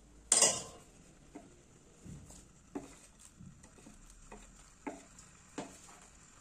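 Kitchen handling clatter on a stainless steel pot: one loud clank about a third of a second in, then a scatter of lighter clicks and knocks at irregular gaps as green chillies are added.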